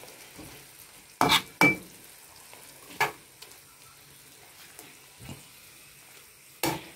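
Strips of fillet frying in a non-stick pan with a quiet sizzle, while a spatula stirs them, scraping and knocking sharply against the pan five times.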